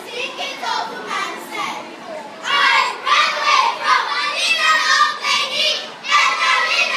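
A group of children chanting lines together in unison, in phrases broken by short pauses.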